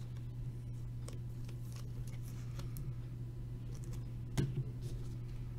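Trading cards being handled and flipped through: faint soft clicks and slides, with one short louder handling noise about four seconds in, over a steady low electrical hum.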